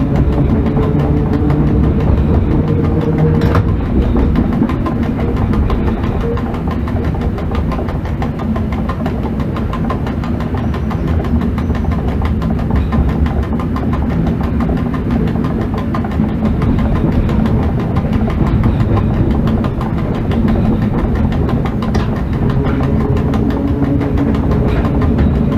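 Inside the cab of an ET22 six-axle electric freight locomotive under way: a steady low hum from the locomotive's machinery over the rumble of wheels on rail, with the odd faint click as it runs over the points.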